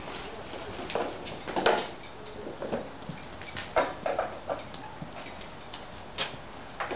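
Saddling a horse: scattered short knocks, clinks and rustles of saddle leather, buckles and stirrup hardware being adjusted, with a few footsteps around the horse. The loudest knock comes just under two seconds in.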